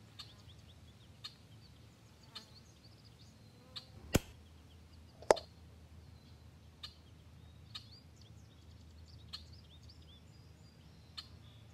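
Faint bird chirps with two sharp clicks about a second apart near the middle, the loudest sounds here.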